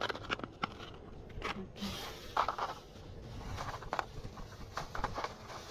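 Plastic bags and packaging rustling and crinkling as items are handled, with scattered small taps and clicks.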